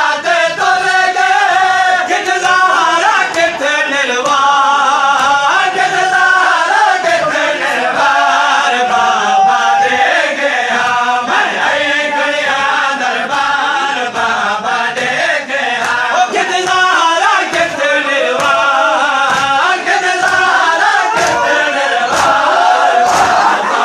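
Men chanting a noha, a Shia mourning lament, taken up by a crowd of mourners in unison. Under the voices runs a steady rhythm of chest-beating (matam) strikes keeping time.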